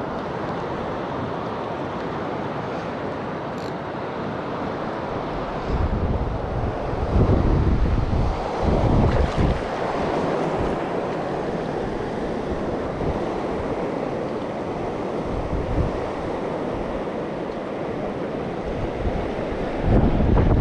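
Fast river current rushing over rocks, heard close to the water, with wind buffeting the microphone in low rumbling gusts about six to ten seconds in and again near the end.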